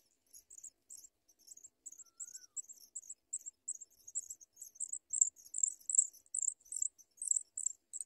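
Pipit nestlings begging: a rapid series of thin, very high-pitched cheeps, about three a second, getting louder in the second half.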